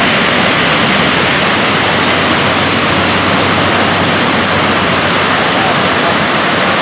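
Heavy ocean surf breaking on the beach: a loud, steady rush of water with no breaks.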